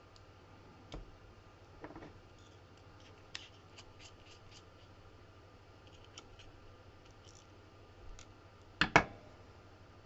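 Light metallic clicks and ticks of small lock parts being handled while a CX5 lock is taken apart and its springs and pins are removed. They come scattered and irregular, with a sharper, louder double click about nine seconds in.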